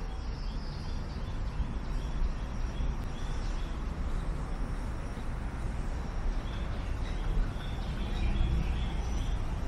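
Steady low background rumble, with a small bird chirping in quick runs of short high notes twice.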